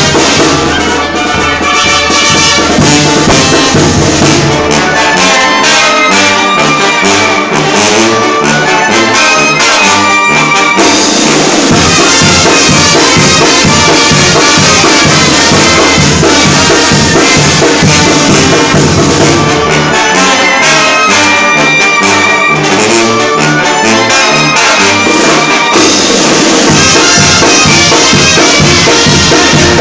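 Live Mexican banda playing a pasodoble: clarinets, trumpets and trombones carrying the tune over a sousaphone bass line, with bass drum and cymbals keeping a steady beat.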